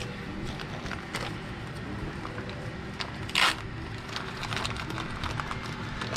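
Scattered small clicks of fittings and tools being handled, and one short, loud crunch about three and a half seconds in: a crimp tool squeezing a crimp ring onto a plumbing fitting. A fan hums steadily underneath.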